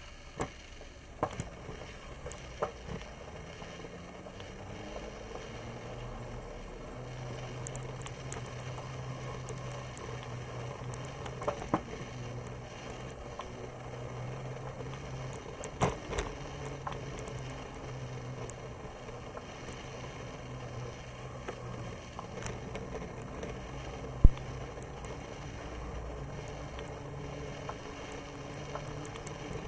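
Moulton bicycle rolling along a concrete walkway: steady riding noise with a low hum and several sharp knocks, the loudest about three-quarters of the way through.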